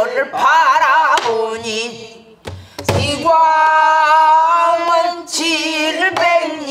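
Woman singing pansori in a strong voice with a wide, wavering vibrato, then a long held note, keeping time on a buk barrel drum struck with a stick; a heavy drum stroke lands about two and a half seconds in, between phrases.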